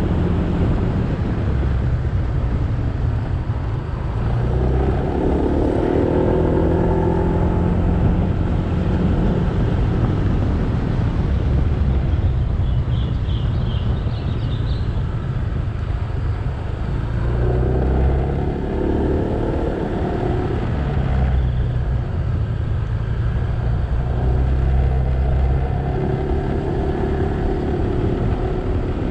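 Motorcycle engine running under way, its pitch rising and falling several times as the bike speeds up and eases off, over steady road noise. A few brief high chirps come about halfway through.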